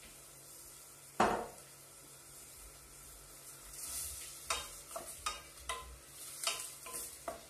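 Wooden spoon stirring chopped onions in olive oil in a stainless steel pot, over a faint sizzle. One sharp knock of the spoon on the pot about a second in, then a run of short knocks and scrapes against the pot through the second half.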